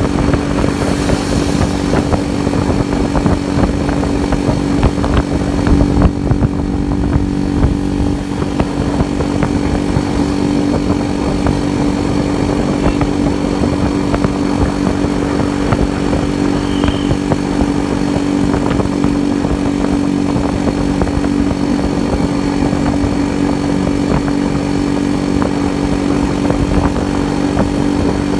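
Yezdi motorcycle's engine running steadily at cruising speed on the highway, with wind buffeting the handlebar-mounted microphone.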